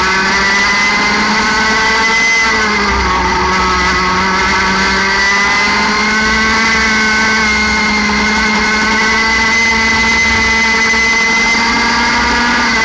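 60cc two-stroke kart engine at high revs under full throttle, heard onboard. Its note rises, dips briefly about three seconds in, then climbs steadily toward about 14,000 rpm.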